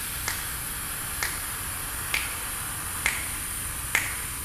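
A long, steady hissed exhale held for a counted breath-support exercise, with finger snaps keeping the beat about once a second, five in all.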